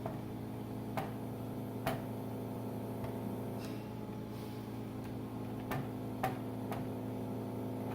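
Irregular light taps, about seven, of an ink pad being patted onto stamps, over a steady low hum.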